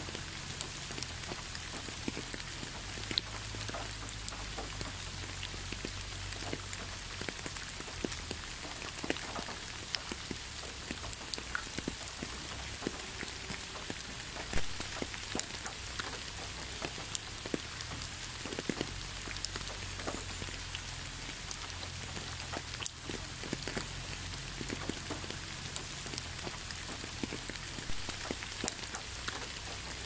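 Small waterfall splashing: a steady hiss of falling water with many separate drips and splashes scattered through it, over a low rumble.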